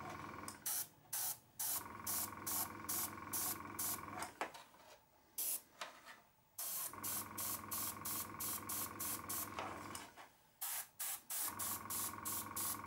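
Airbrush spraying paint onto a clear Lexan RC car body in short, quick hissing puffs, about two a second, laying down a light first dusting coat, over the steady hum of its small air compressor. Twice the hum and the spraying stop for a second or two before starting again.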